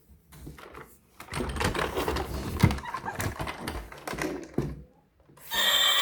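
Toys and packaging being handled, a dense run of clicks and rattles from about a second in. Just before the end a toy's electronic sound starts, loud and steady with several pitches at once.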